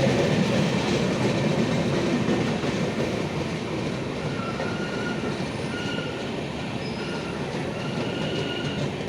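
Vaigai Express passenger train running on the rails: a steady rumble that eases off slightly. From about halfway through, faint high-pitched whines come and go.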